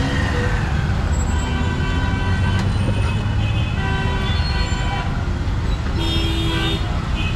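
Busy street traffic with a steady low rumble of engines and road noise, and vehicle horns honking several times, mostly from about two seconds in and again near the end.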